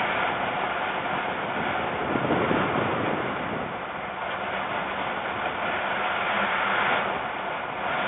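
Strong wind rushing over the nest-box microphone, a steady noise with a gust swelling about two seconds in.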